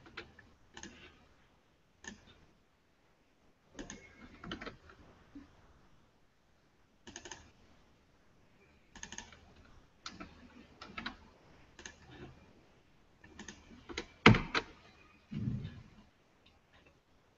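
Computer keyboard keystrokes and mouse clicks come in irregular short clusters, with a louder knock near the end.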